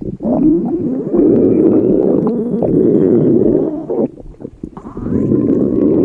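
Human stomach rumbling and gurgling, loud and nearly continuous, with a brief quieter lull about four seconds in before the gurgling picks up again.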